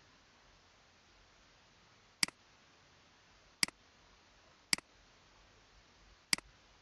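Four sharp computer mouse clicks, roughly a second to a second and a half apart, each a quick double snap of the button pressing and releasing, over a faint steady hiss.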